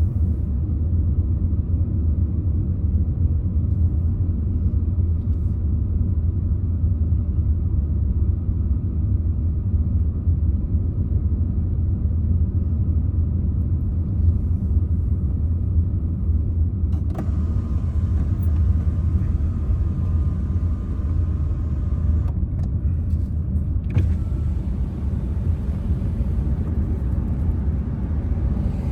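Road noise inside a moving car: a steady low rumble of engine and tyres. About two-thirds of the way through, a brighter hiss and a faint whine join in for several seconds, and the hiss comes back near the end.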